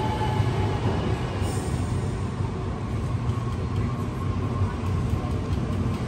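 Sydney Trains Millennium (M-set) double-deck electric train rolling along the platform of an underground station as it slows to stop, a steady low rumble of wheels and carriages. A faint electric whine falls in pitch and fades about a second in.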